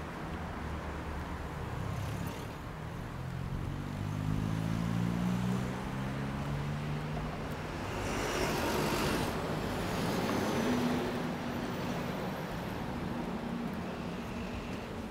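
Road traffic: a motor vehicle's engine note climbs for several seconds as it accelerates, then a louder rush of a vehicle passing close by about two-thirds of the way through.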